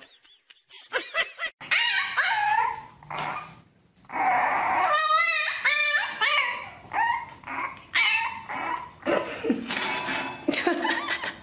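French bulldog puppy yapping and whining: a run of short, high yips with one longer, wavering whine about five seconds in.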